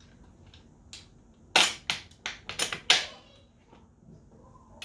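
Sharp metallic clicks and clanks as metal rotisserie bracket parts and bolt hardware are handled and knocked together: a faint one about a second in, then five quick loud ones in a cluster, each with a brief ring.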